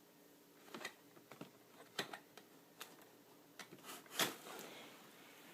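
Light, irregular clicks and taps of a cat batting a toy mouse around its plastic round track, with the loudest knock about four seconds in.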